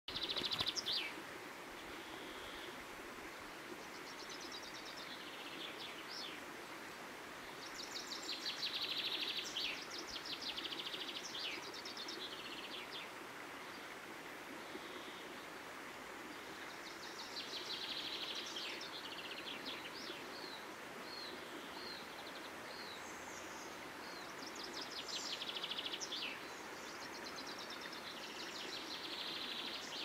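Birds singing in repeated bursts of quick trills and chirps every few seconds, over the steady rush of a stream flowing.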